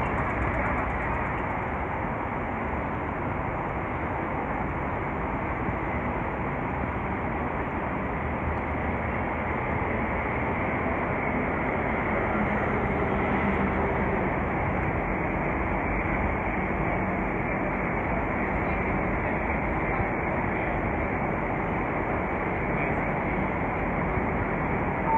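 Steady city street traffic noise: cars passing on a busy road, with a low engine hum standing out around the middle.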